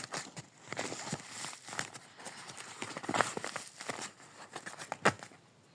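Irregular taps, rustles and crinkles of a small toy snack packet squishy being handled and turned over, with one sharper click about five seconds in.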